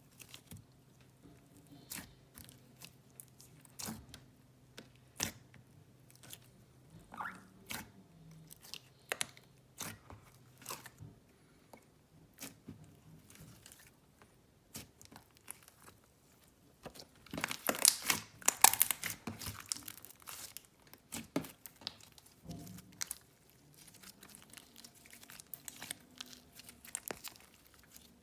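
Inflated clay slime being squished and stretched by hand, giving off scattered small pops and crackling sizzles. A dense, louder run of crackles comes about 18 seconds in.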